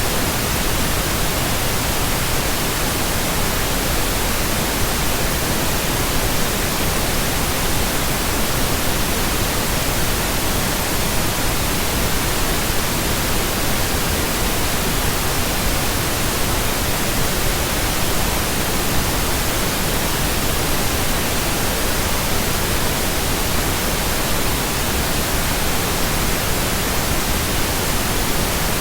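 Steady, unbroken hiss of generated pink noise, spread evenly across low and high pitches with no tones, clicks or breaks.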